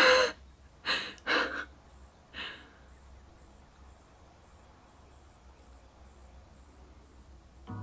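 A person's breathy exhalations: four short puffs of breath in the first two and a half seconds, the first the loudest, then near quiet.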